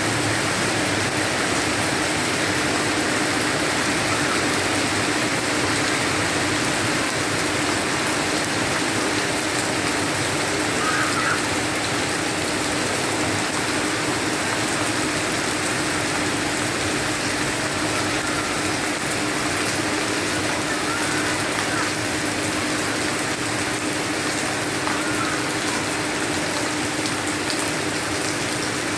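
Steady heavy rain falling, an even rushing hiss that does not let up, with a low steady hum underneath.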